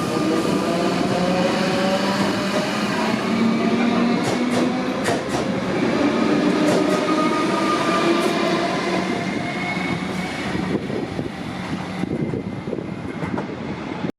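A train passing close by, its running gear and motors whining in several tones that slowly shift in pitch. There are a few sharp clicks from the wheels about four to seven seconds in, and the sound fades over the last few seconds.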